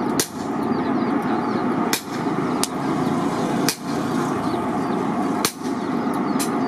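Coal forge fire blown hard by a fan blower: a steady rush of air and fire. Four sharp cracks come about every two seconds, with fainter ticks between them.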